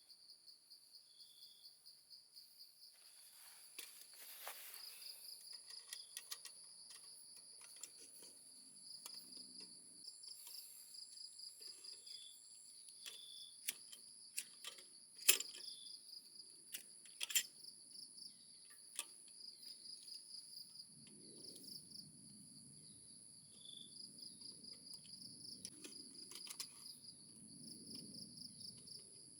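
Insects chirping steadily in high, pulsing trills. Two sharp clicks or knocks come around the middle and are the loudest sounds, and a low rumbling noise joins in the last third.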